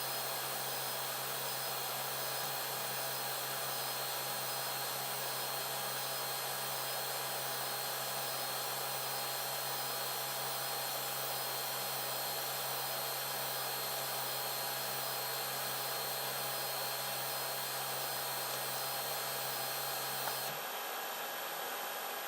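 Steady whir of cooling fans with a low electrical hum. Near the end the hum and part of the high hiss cut out, leaving a quieter whir.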